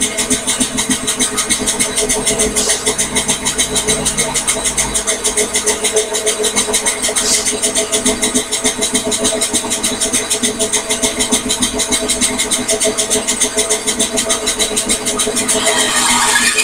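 Microlux variable-speed benchtop bandsaw running steadily with a fast, even pulsing while sawing a piece of wood. Its tone shifts near the end.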